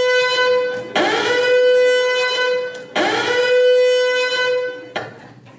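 A pitched instrument sounds the same long note again and again, a fresh note about every two seconds, each held and then fading. The last note dies away near the end.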